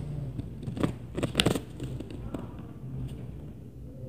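Knocks and bangs from the apartment upstairs heard through the ceiling, a cluster of them loudest about a second and a half in, with fainter single knocks after, over a low, broken hum.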